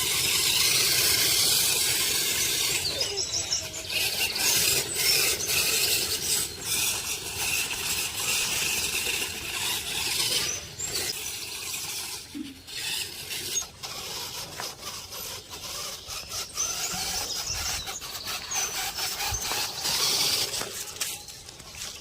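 Homemade 6x6 RC car running over rough ground: its wheels and small gear motors scrape, rub and squeal, with many sharp clicks and knocks throughout.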